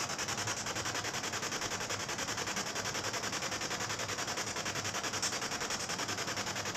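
Spirit box (ghost box) radio sweeping through stations, giving rapid, evenly spaced pulses of static.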